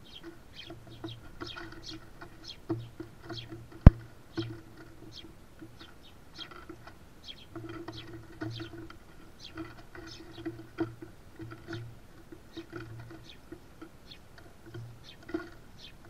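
House sparrows feeding on sunflower seeds on a wooden platform feeder: many irregular pecking taps and seed-cracking clicks on the boards, with short chirps. One sharp, loud click comes about four seconds in.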